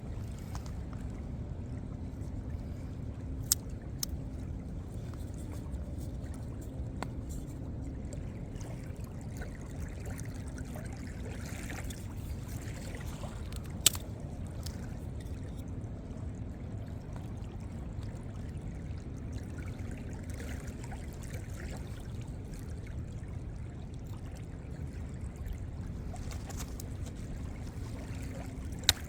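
Steady low rush of moving water, with a couple of sharp clicks, the loudest about a third and halfway through.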